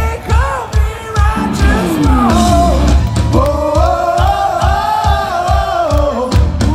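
Hard rock band playing live: a sung vocal line over steady drum beats and electric guitar.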